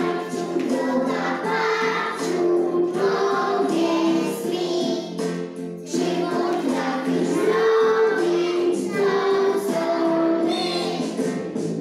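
A group of small children singing a song together, with instrumental accompaniment.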